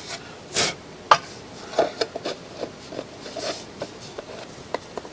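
Light handling sounds as a barometer's metal dial and movement are fitted into its wooden case: scattered small clicks, taps and rubbing, with one sharp click about a second in the loudest.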